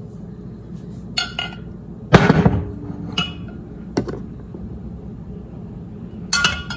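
A metal spoon clinking and knocking against a glass mason jar and bowl while scooping out gelled bone broth: a handful of sharp clinks, the loudest about two seconds in with a brief ring.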